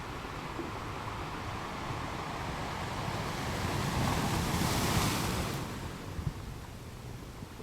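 Ocean waves breaking on a beach: a wave swells and washes in about four to five seconds in, with a rising then fading rush of surf, over a steady background wash.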